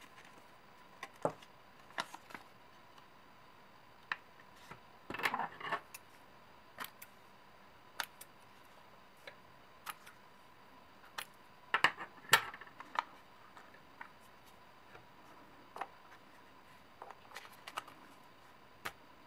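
Small handling noises as sticky-note paper is wrapped around a battery and trimmed with scissors: scattered light clicks and taps, with two short stretches of paper rustling and snipping about five and twelve seconds in.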